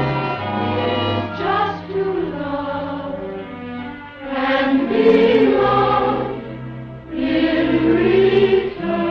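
Orchestral film music with a choir singing long held chords, swelling louder twice, about four and a half seconds in and again near the end.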